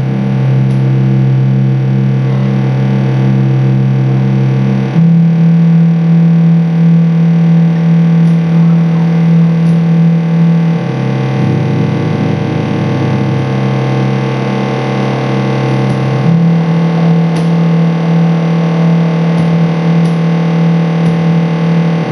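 Loud, distorted drone music. A sustained low note steps between two pitches about every five or six seconds, under a dense layer of steady higher tones.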